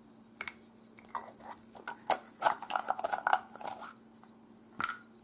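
Handling noises: a few sharp clicks, then rustling and scraping about two to four seconds in, and one more click near the end. There is no shot.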